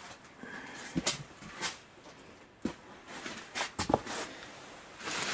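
Clear plastic film covering a greenhouse bed rustling and crinkling as it is handled, with scattered light crackles and a denser rustle near the end.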